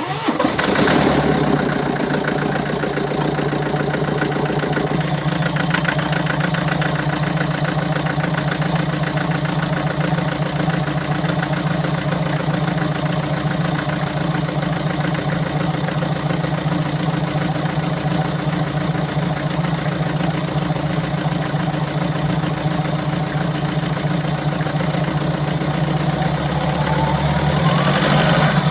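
BMW 525d F10's 2.0-litre four-cylinder diesel engine (N47D20D) idling with a knocking, uneven sound, which the seller puts down to defective injectors and defective swirl flaps. Near the end the engine speed briefly rises and falls.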